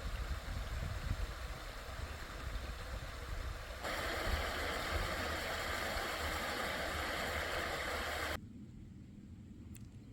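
Running water of a mountain stream, a steady rushing noise with a low rumble underneath; it jumps louder a little before halfway and drops to a faint hush near the end, as the shots change.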